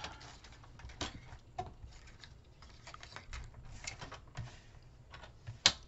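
Thin strips of patterned paper being handled and slid on a paper trimmer: light rustles and scattered small clicks, with one sharp, louder click near the end.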